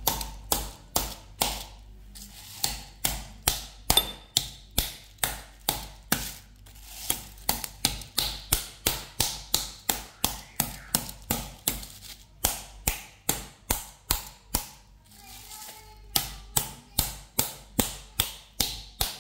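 Metal meat tenderizer mallet pounding a raw half chicken laid on a plastic sheet: steady blows about two a second, flattening and breaking up the meat. The blows stop briefly a few seconds before the end, then resume a little faster.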